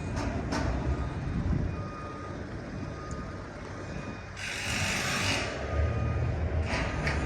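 Backup alarm of a heavy vehicle beeping in a steady tone over a rumbling diesel engine. A loud hiss lasting about a second comes about four and a half seconds in.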